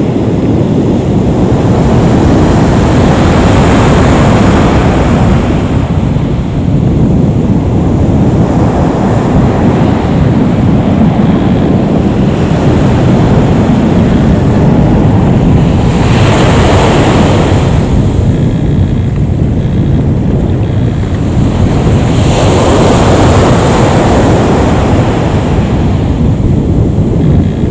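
Loud, steady rushing roar with a deep rumble from a jet airliner's engines, the Airbus A320's IAE V2500 turbofans, heard at a distance across the airfield with wind on the microphone. It swells and eases three times, a few seconds in, past the middle and near the end.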